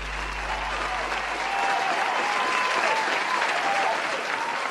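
Audience applauding with cheering over it, growing a little louder about two seconds in.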